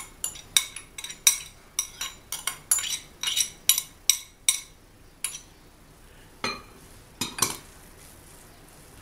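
Metal spoon scraping and tapping against a ceramic bowl in quick sharp clicks, about three to four a second, as chopped parsley is knocked out of it. The clicks stop about halfway through, and a couple of heavier clunks follow as the emptied bowl is set down on another bowl.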